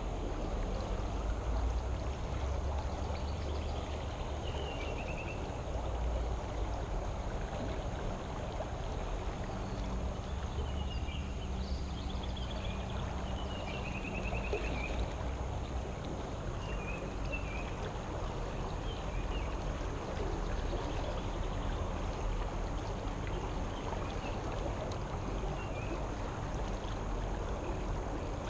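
Creek water flowing steadily and rushing out through a culvert, a continuous rushing noise with a low rumble underneath. A few short high chirps come now and then.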